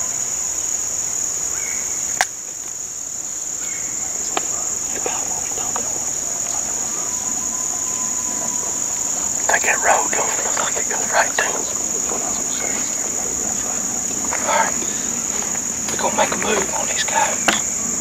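Steady high-pitched insect chorus in summer woods, with a sharp click about two seconds in and brief scattered sounds in the second half.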